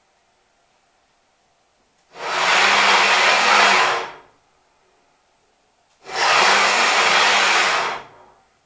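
Ball screw and linear bearings of a CNC router's X axis running at full speed as the carriage traverses 800 mm at 30 m/min, its servo at 3,000 rpm on a 10 mm-lead ball screw. There are two runs, out and back, each a steady noisy rush lasting about two seconds, with a pause of about two seconds between them. The noise comes from the ball screw and bearings; the servo itself is nearly silent.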